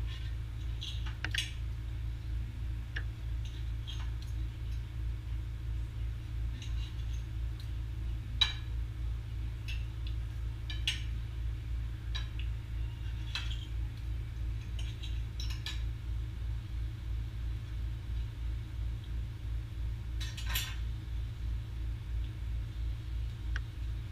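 Knife and fork clinking and scraping on a plate as steak is cut into pieces, in irregular scattered clicks with a sharper clink about eight seconds in and a small cluster near the end. A steady low hum runs underneath.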